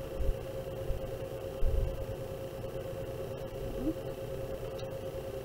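Steady electrical hum in one high tone over faint room noise, with a few soft low bumps, the loudest a little under two seconds in.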